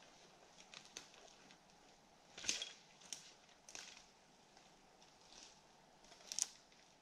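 Quiet pine-forest ambience, a faint steady hiss broken by a few irregular sharp clicks and snaps; the loudest come about two and a half seconds in and near the end.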